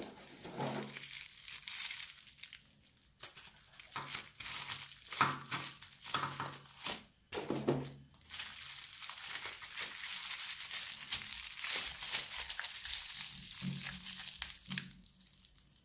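Plastic bubble wrap crinkling and crackling as it is pulled off a bottle by hand: a few separate crackles at first, then steadier crinkling in the second half that stops near the end.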